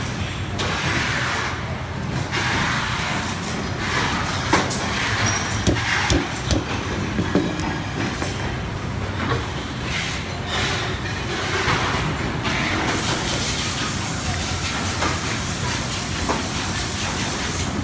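Steady mechanical rumble and hiss, with a few sharp clicks and knocks between about four and eight seconds in.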